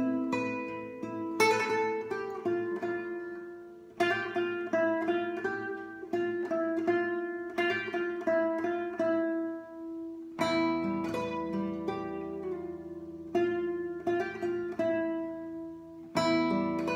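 Solo classical guitar, fingerpicked: a slow melody of plucked notes that ring and fade over held bass notes, each phrase starting with a firmer pluck. Deeper bass notes come in about ten seconds in.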